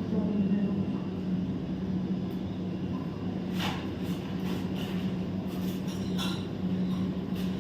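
A steady low machine hum, with a couple of short clicks or clinks partway through.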